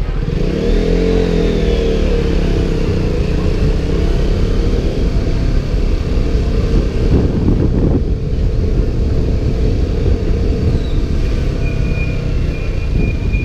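KTM Duke motorcycle engine running under way, its pitch rising and falling in the first couple of seconds, under heavy wind noise on a GoPro microphone inside its waterproof case.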